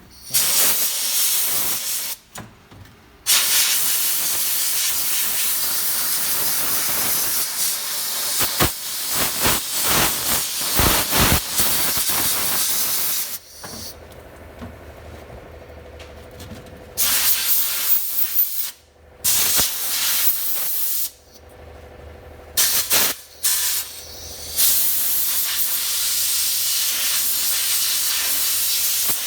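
Sandblaster blasting a small steel bracket part: a loud hiss of compressed air and abrasive, triggered on and off several times, the first long run lasting about ten seconds and the later ones a few seconds each.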